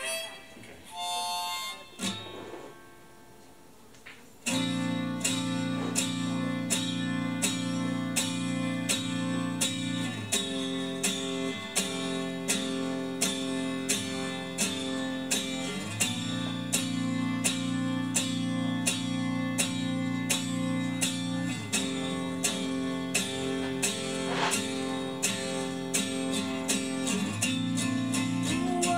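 Harmonica playing a few notes, then, after a short pause about four seconds in, an acoustic guitar strumming in a steady rhythm under sustained harmonica, with the chord changing every few seconds.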